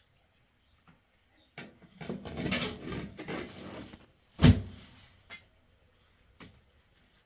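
A couple of seconds of rough handling and rustling, then one sharp, loud thump a little past the middle, followed by a few faint knocks.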